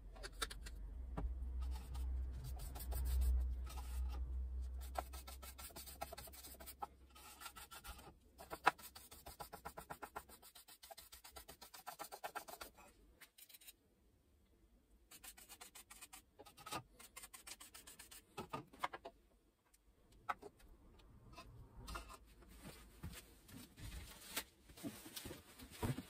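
Faint handling sounds of a paintbrush dabbing in a glass bowl and stroking over wooden box pieces: irregular light taps, rubs and scrapes, with a low rumble in the first few seconds.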